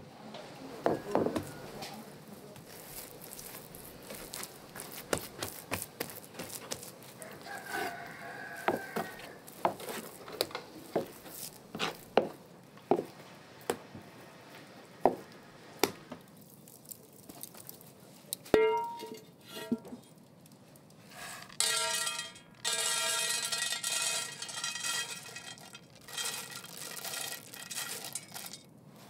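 Kitchen utensils, dishes and pots clinking and knocking in irregular taps during food preparation. Near the end a held pitched sound with several overtones rings for about six seconds.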